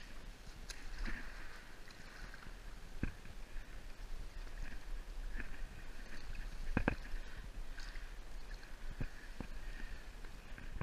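Water sloshing and splashing in a slot-canyon pool as a canyoneer moves through it on rope, with a few sharp knocks, the loudest about seven seconds in.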